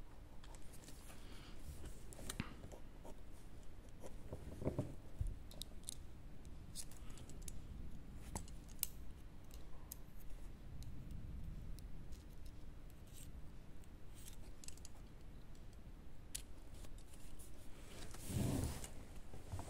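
Pencil scratching on paper in short, quick strokes, heard as scattered faint clicks and scratches. A louder rubbing noise comes near the end.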